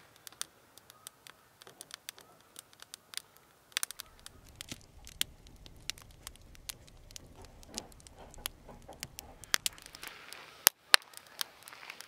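Wood fire crackling in a steel mesh fire pit: split logs snapping and popping irregularly, with a few louder pops in the last couple of seconds.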